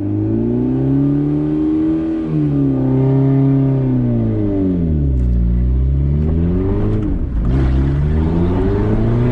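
Car engine revving under load, its pitch climbing, sagging about five seconds in, then climbing again after a short break near seven seconds.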